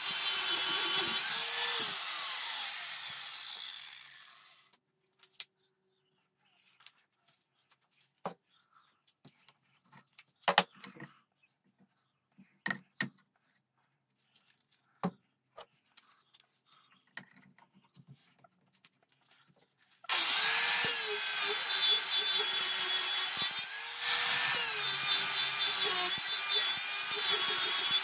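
Angle grinder grinding a steel dagger blade, a steady harsh grinding with a high whine. About two seconds in it is switched off and spins down, leaving a few light knocks and clicks as the blade is handled. About twenty seconds in the grinder starts again suddenly and grinds on.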